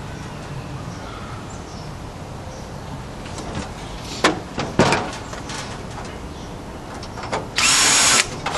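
Two sharp knocks as a sheet-steel computer case is handled and turned over, then near the end a cordless drill runs for about half a second, backing a screw out of the drive cage.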